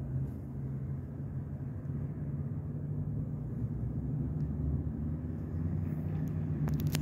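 A steady low rumble, with a few sharp clicks just before the end.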